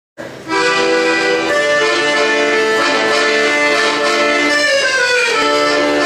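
Piano accordion playing a tune in held chords, starting just after the opening, with a falling run of notes about five seconds in.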